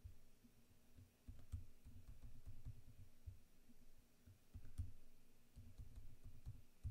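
Faint computer keyboard typing and mouse clicks, soft taps in short runs.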